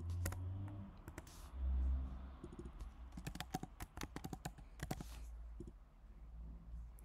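Computer keyboard typing while code is edited: a few separate key clicks in the first second or so, then a quick run of keystrokes from about three to five seconds in. There is a short low rumble around two seconds in.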